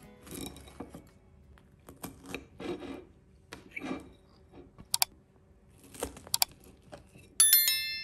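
Metal fork scraping and tapping on a ceramic plate as it cuts through soft cinnamon rolls, with a few sharp clicks partway through. Near the end a bright ringing chime, the loudest sound, dies away over about half a second.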